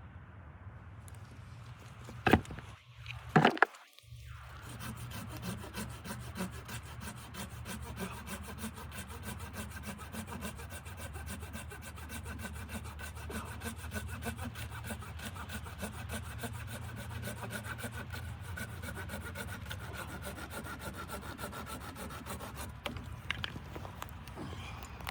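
Hand saw cutting wood with steady, even back-and-forth strokes, after two loud knocks near the start.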